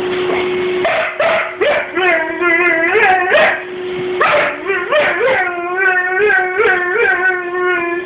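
A husky howling and whining at a running vacuum cleaner: a string of short wavering 'woo' calls, rising and falling in pitch, over the vacuum's steady hum.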